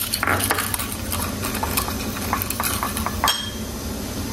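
A spoon stirring a sauce mixture, clicking and scraping irregularly against the side of its container, with one sharper clink about three seconds in.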